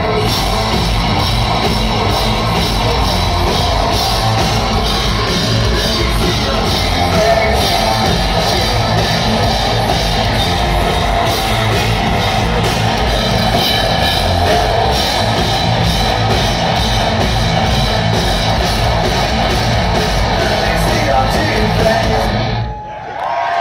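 Live rock band playing loud, with drums, distorted electric guitars and a singer, recorded from the crowd; the song stops suddenly near the end.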